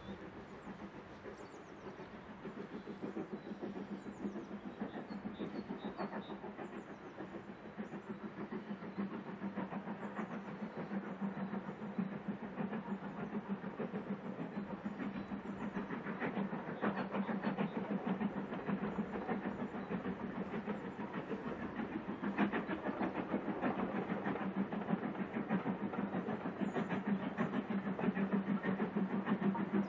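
Distant steam locomotive, Midland 4F 0-6-0 No. 43924, working a train, its exhaust beats coming in a steady run and growing louder as it approaches.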